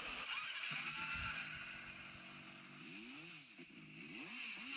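CFMOTO 500SR Voom's 500 cc inline-four engine running, then revved twice in the second half, each rev rising and falling in pitch.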